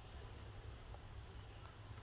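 Quiet room tone: a steady low hum with faint background hiss.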